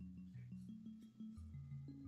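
Soft background music: a melody of short, low notes, a new note every quarter to half second.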